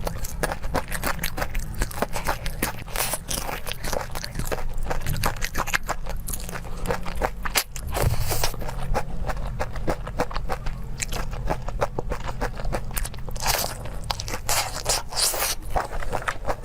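A person biting and chewing crisp, crunchy food close to the microphone. Dense, irregular crackling crunches run throughout, with louder bursts of crunching around three seconds in, about halfway, and near the end.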